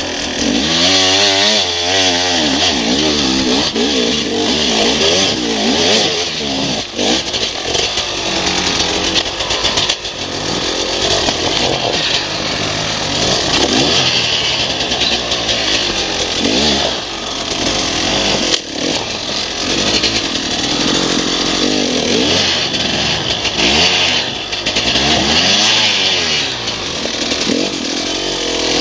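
Enduro motorcycle engine revving up and down over and over, the revs rising and falling every second or two as it is ridden along a rough, rocky trail.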